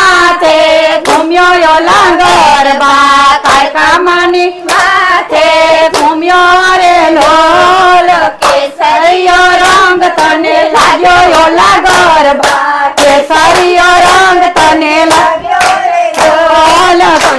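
A group of women singing a traditional Gujarati garba song, with hand clapping in rhythm throughout.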